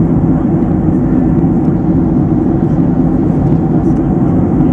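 Jet airliner cabin noise in cruise: the steady low drone of engines and rushing air, heard from inside the cabin.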